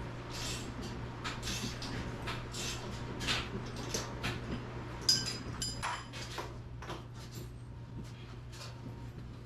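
Steel winding bars working the winding cone of a garage door torsion spring, a quarter turn at a time: repeated metal scrapes and clinks, with one sharper ringing clank about five seconds in.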